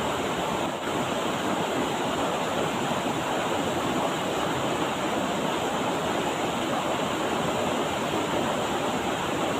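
Rushing river water: a steady, even flow of water over rocks.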